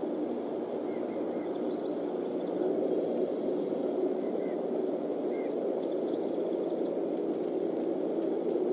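Steady low rushing background noise from an outdoor nest-cam microphone, with a few faint, short bird chirps scattered through.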